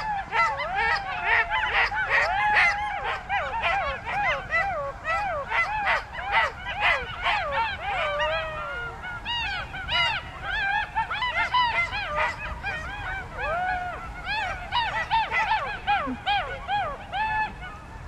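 A pack of golden jackals howling and yipping in chorus, many voices overlapping in short rising-and-falling calls, thinning out near the end.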